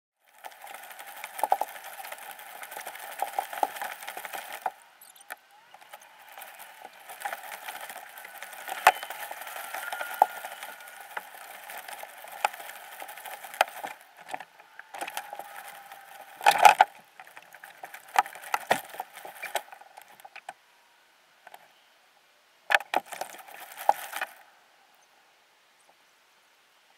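Irregular clicks, knocks and rustling from things moving on a plastic kayak, heard thin and boxy through a hull-mounted camera. The knocks are loudest about 17 and 23 seconds in, and the sound stops about 24 seconds in.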